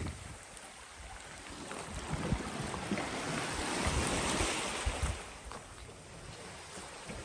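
Small sea waves washing onto the shore: one swell of surf rises over a couple of seconds and falls away again, with wind buffeting the microphone.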